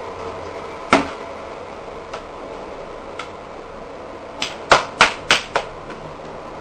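Sharp knocks over a steady background hum: three single knocks about a second apart, then a quick run of five near the end, the second of them the loudest.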